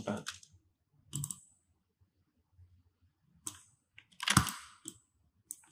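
A handful of separate clicks from a computer mouse and keyboard, the loudest about four seconds in, with quiet gaps between.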